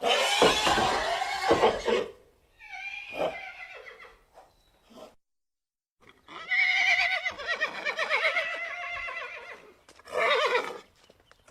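Horse calls: a harsh, noisy call for the first two seconds and quieter ones after it. After a short pause comes a long, wavering whinny, and a short neigh follows near the end.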